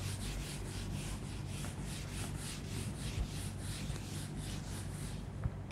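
Whiteboard eraser wiping a whiteboard in quick, even back-and-forth strokes, about four a second, stopping about four and a half seconds in.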